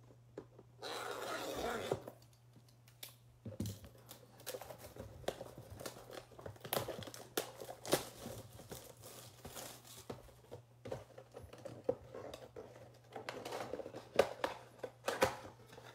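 Plastic shrink-wrap being torn and crinkled off a cardboard trading-card box, then the box flap being pried open. It starts with a short rustling tear about a second in, followed by irregular crinkling and small clicks that get busier near the end.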